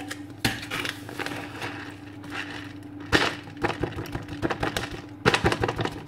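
Packet of cooked quinoa crinkling as it is squeezed and tipped into a glass bowl of flour, with scattered knocks and crackles, the loudest about three seconds in and near the end, over a faint steady hum.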